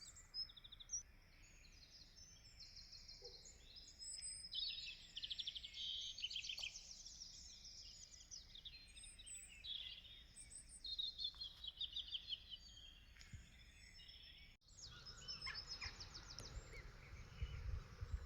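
Small songbirds singing faintly and almost continuously: fast trills and chirps, many phrases overlapping. The audio cuts about three-quarters of the way through, and a few low thuds follow near the end.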